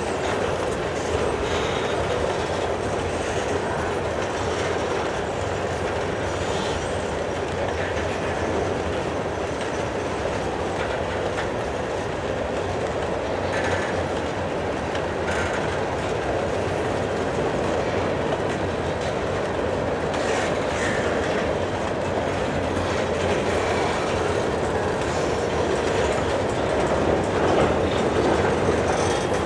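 Freight train of covered grain hopper cars rolling past at close range: a steady rumble and clatter of steel wheels on the rails, with a few faint, brief squeals.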